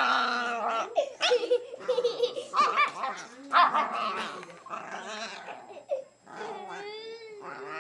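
Boxer puppy play-growling and barking, a fierce-sounding fake growl from a small puppy, mixed with a young child's laughter.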